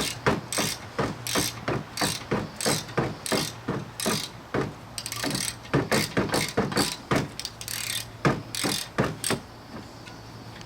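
Hand ratchet wrench clicking stroke after stroke, about three clicks a second, working a Torx fastener; the clicking stops a little over nine seconds in.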